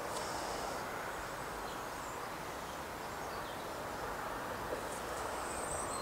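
Steady outdoor background noise, an even hiss, with faint high chirps of small birds briefly about a second in and again near the end.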